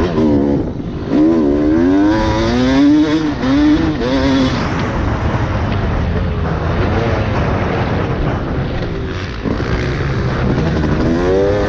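Dirt bike engine revving on a motocross track, its pitch climbing and dropping several times in quick succession over the first few seconds, then running steadier and lower.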